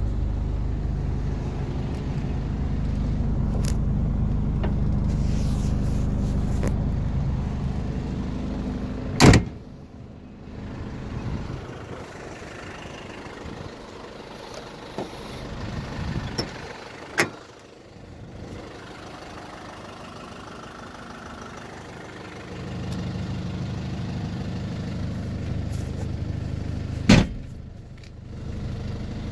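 Isuzu Bighorn's 2.8 L 4BJ1-T turbo-diesel idling with a steady low hum, dropping much quieter for a stretch in the middle and coming back near the end. Three sharp knocks, a door or hatch being shut, stand out at spaced intervals.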